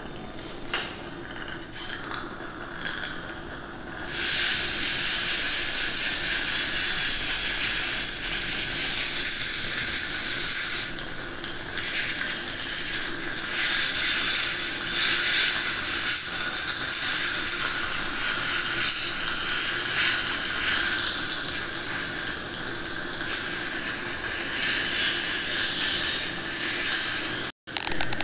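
Dental saliva ejector sucking in the mouth with a steady hiss, which gets louder about four seconds in.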